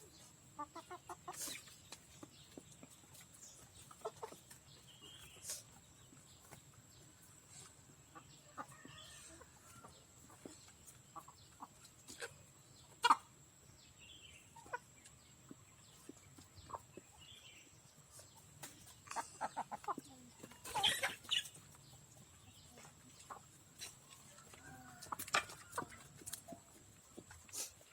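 Aseel hens clucking on and off, with scattered sharp taps; the loudest tap comes about halfway through and a burst of clucks follows later. A faint steady high-pitched tone runs underneath.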